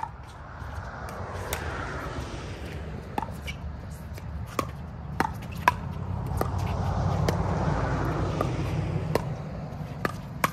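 Pickleball paddles striking a hard plastic ball in a doubles rally: sharp pops at irregular intervals, about ten in all, some in quick pairs. A steady low rumble runs underneath.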